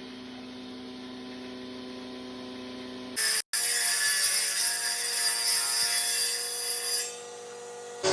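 A small power tool running steadily, with a low hum at first. After a short break about three and a half seconds in, it turns to a louder, hissing cut into wood that eases off near the end.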